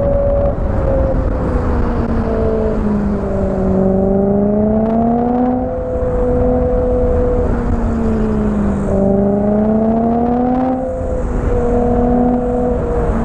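BMW E92 M3's V8 engine running under load, its note climbing slowly and dropping suddenly twice as the car accelerates and eases off, over steady road and tyre noise.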